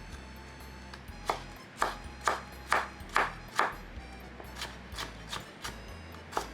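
Background music with a kitchen knife chopping on a cutting board: a run of sharp, even strokes about two a second, strongest early, then lighter strokes near the end.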